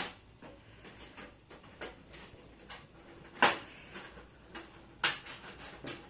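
Light clicks and taps of metal parts being handled and fitted on a folding camp stove, with two sharper clicks about three and a half and five seconds in.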